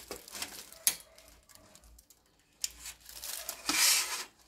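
Long-nosed utility lighter clicking a few times as it is triggered, then a louder rushing hiss near the end as flame catches on a disposable instant barbecue's paper and charcoal.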